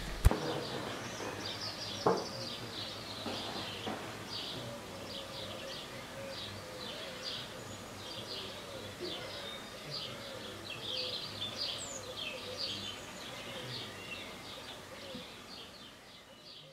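Small birds chirping and singing repeatedly. There is a sharp click just after the start and a knock about two seconds in.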